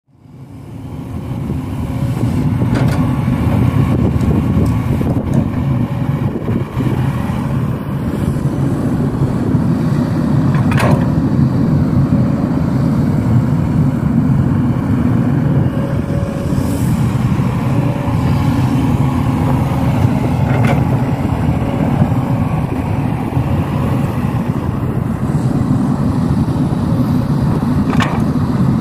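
Steady low rumble of a motor vehicle running, fading in over the first two seconds, with a few brief clicks.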